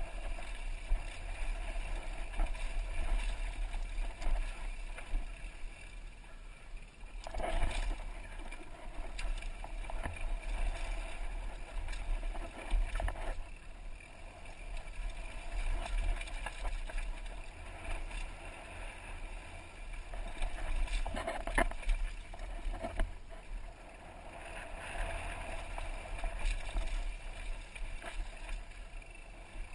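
Downhill mountain bike ridden fast down a dirt trail, heard from a helmet-mounted camera: a steady rumble of wind on the microphone and tyres on dirt, with the bike rattling over bumps and a few sharp knocks from harder hits.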